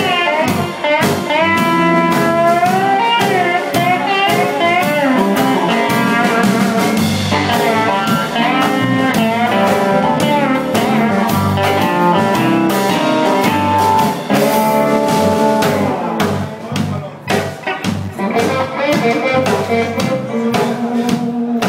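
Live blues band playing: electric guitar and lap steel guitar with bending, sliding notes over a drum kit. The band drops back a little about two-thirds of the way through.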